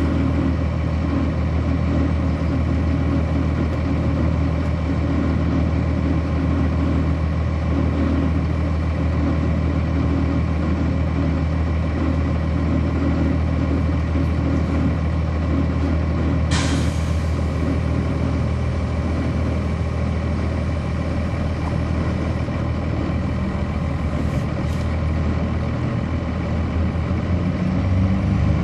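The Cummins ISC inline-six diesel of a 1999 Nova Bus RTS transit bus idling steadily, heard from on board. About halfway through there is one short, sharp hiss of compressed air. Near the end the engine note starts to rise.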